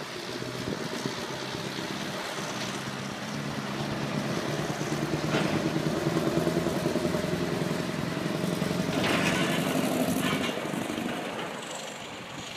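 Scania 4-series truck with an open exhaust under load, pulling a container trailer. The engine note grows louder as the truck passes, then fades as it drives away.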